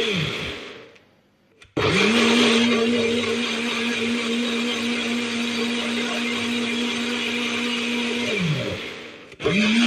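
Blender blending orange, lemon, ginger and water in bursts. The motor winds down with a falling pitch and stops just after the start, then restarts abruptly about two seconds in. It runs steadily for about six seconds, winds down again, and starts once more near the end.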